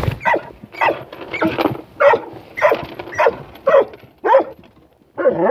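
Puppy yapping: a run of short, high barks about two a second, with a brief pause near the end before another bark.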